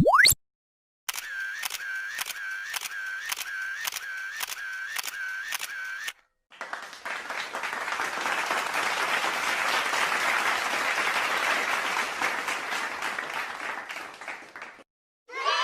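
A string of short sound effects: a quick, loud rising whistle-like glide, then a clicking effect repeated about twice a second for five seconds, each click carrying a short tone, then several seconds of dense, even noise like applause that fades away.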